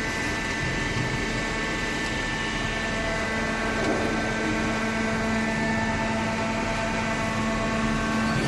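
Hydraulic cardboard baler running: its electric motor and hydraulic pump give a steady hum and whine.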